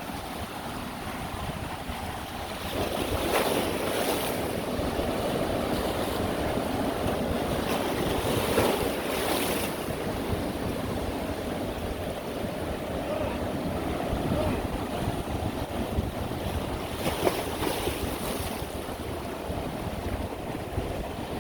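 Heavy ocean surf breaking on the shore, a continuous wash that swells into big crashes three times, a few seconds apart.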